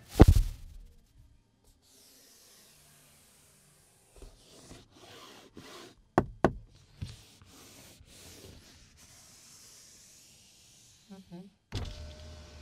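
Handling noises on a 2024 Changan CS75 Plus's door trim: a loud knock on the armrest at the start, light rubbing over the panel, and two sharp clicks about six seconds in. Near the end the window switch is pressed and a low steady hum starts, the power window motor running.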